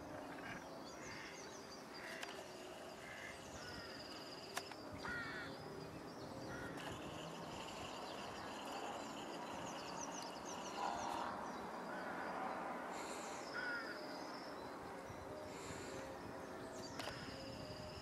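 Several wild birds calling and singing: a high whistled note that recurs every few seconds, quick chattering phrases, and some harsh calls.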